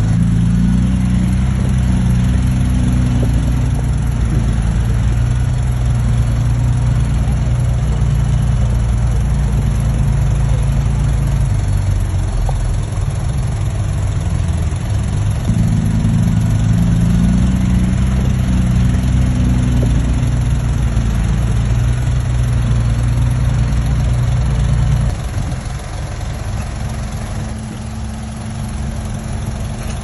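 Heavy truck engine running steadily, a deep low drone that grows quieter near the end.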